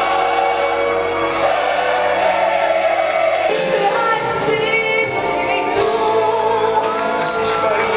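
Show music with a singing voice, held melodic notes over a steady backing.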